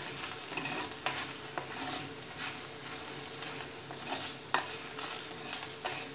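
Wooden spatula stirring okra frying in oil and spices in a clay pot (chatti), scraping the pot in irregular strokes every half second to a second, over a steady sizzle.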